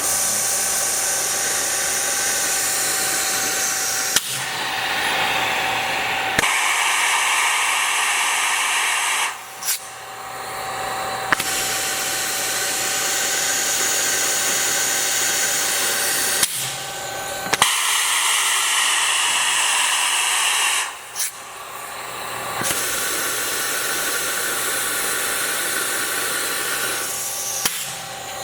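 Warner & Swasey lathe with an air-powered chuck running, a loud steady hiss of machinery and compressed air that changes character in stretches, some carrying a steady whine. Sharp clacks now and then, as the air chuck actuates, and the sound drops off briefly twice.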